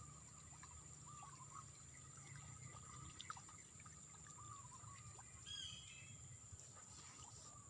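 Faint riverside ambience with a steady high-pitched hum and scattered short, wavering bird chirps. A brief, clearer call comes about five and a half seconds in.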